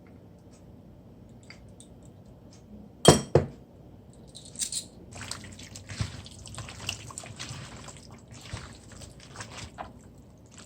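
Two sharp knocks about three seconds in, then several seconds of wet, irregular squelching and dripping from raw chicken being handled in its liquid marinade.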